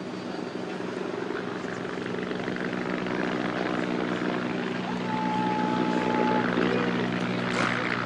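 Steady low mechanical drone, like an engine or aircraft running, growing slowly louder, with a short thin high tone about five seconds in.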